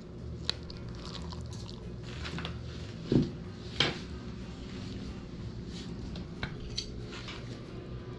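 Cutlery and dishes clinking and scraping, with small scattered clicks and two louder knocks about three and four seconds in, over a steady low hum.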